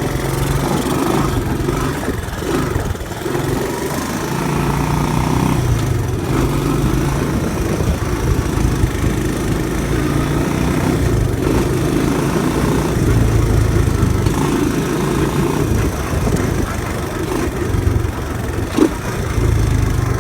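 Honda ATC200M's single-cylinder four-stroke engine running, its speed rising and falling, with a short sharp knock near the end.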